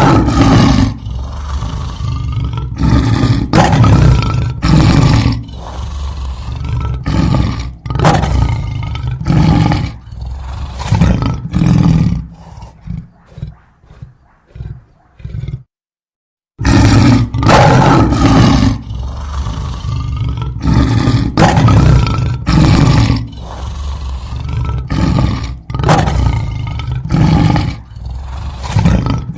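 Lion roaring: a series of loud, deep roars that tail off into quieter grunts, cut out for about a second just past the middle, then start again loudly.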